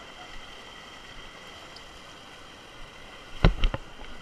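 Steady rush of a waterfall, with a faint steady high tone over it. A few sharp knocks land in quick succession near the end.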